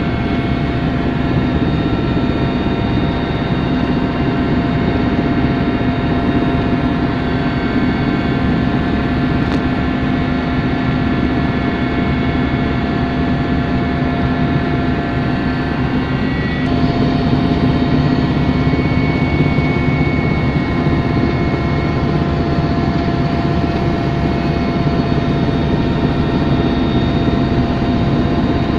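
Helicopter in flight, heard from inside the cabin: a steady drone of engine and rotor with a few steady whining tones. It gets a little louder a bit past halfway through.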